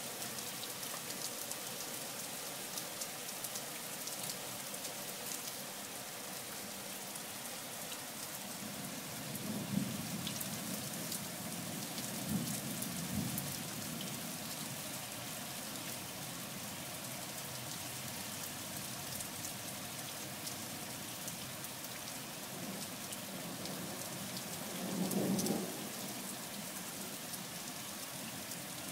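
Steady rain falling on a wet street, with sharp ticks of individual drops landing close by. Low rumbles of distant thunder swell about nine and twelve seconds in and again near the end, the last one the loudest.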